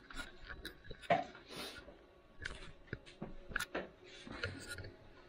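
A string of light, irregular clicks and knocks, faint and scattered through the few seconds.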